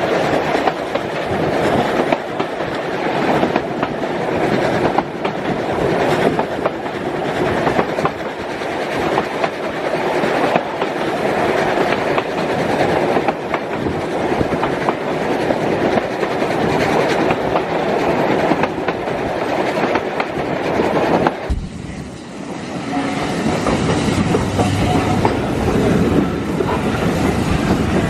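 Train running along the line, its wheels clacking over rail joints. The sound changes abruptly about 21 seconds in, losing much of its high end.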